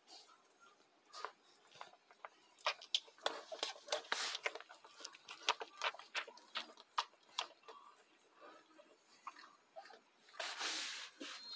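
One-week-old schnauzer puppies suckling at their mother's teats: irregular wet smacking clicks, several a second, thickest in the middle. A short hissing rustle near the end.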